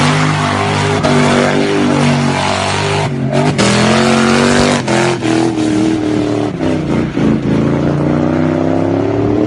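Car engine held at high revs while the car drifts, with hard tyre noise from the spinning rear wheels. The revs dip briefly about three seconds in, then climb steadily through the second half.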